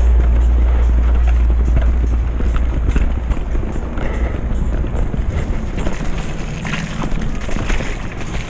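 Wind buffeting the helmet-camera microphone while a mountain bike rides fast down a wet, muddy trail, with tyre noise and many short rattles and knocks from the bike. The wind rumble eases about halfway through as the bike slows.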